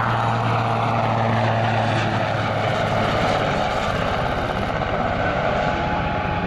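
Eurocopter AS532UL Cougar (Super Puma) military helicopter flying away after a touch-and-go: the fast, steady beat of its main rotor over the whine of its twin turboshaft engines. The low hum under the rotor beat fades about halfway through as the helicopter draws away.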